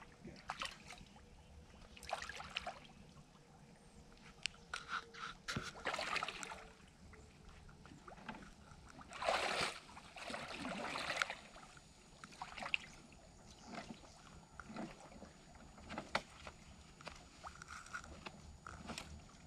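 Water sloshing and splashing around a man wading in a shallow pond while hauling in a trap line, with irregular splashes and small knocks. The loudest splash comes about nine to ten seconds in.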